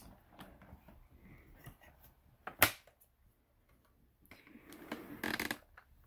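Handling noise from a man moving around and touching a vacuum cleaner that is switched off: soft rustling and scraping, one sharp click about two and a half seconds in, and louder rustling near the end.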